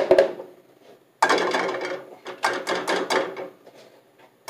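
A rapid run of knocks and clatter from hard objects being handled, starting about a second in, lasting about two seconds and fading out. A few sharp knocks come right at the start.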